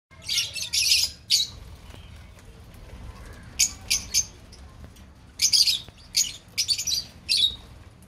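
A flock of Fischer's lovebirds giving short, shrill squawks and chirps in quick clusters: a burst near the start, three calls around the middle and a longer run over the last few seconds.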